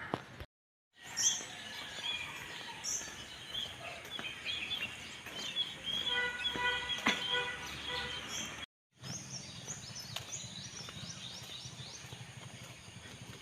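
Many small birds chirping and twittering over a steady outdoor background hum. The sound drops out briefly twice.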